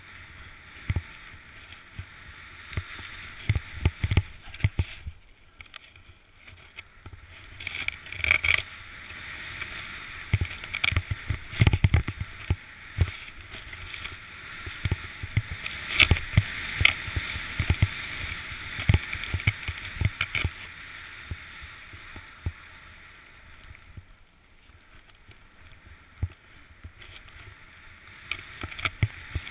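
Snowboard sliding through deep powder snow: a continuous hiss that swells and fades with the turns, with many sharp low thumps and knocks from the board and rider over bumps.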